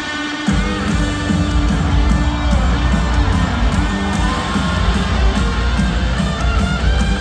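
Live rock band in full swing: electric guitars, bass and drums. The low end drops out for a moment at the start, then the full band comes back in about half a second in.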